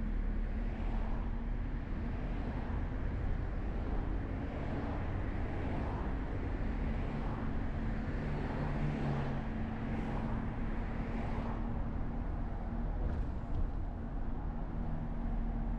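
Steady rumble of travel along a city road: road and wind noise with a low steady hum throughout, and a little passing traffic.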